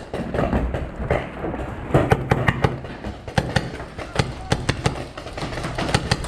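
Paintball markers firing: a string of sharp pops at irregular spacing, several in quick succession, starting about two seconds in.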